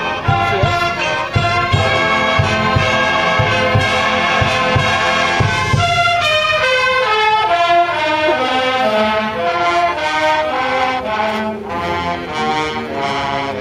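High school marching band playing on the field: full brass chords over steady bass drum beats for the first six seconds or so, then the brass steps down in a descending line.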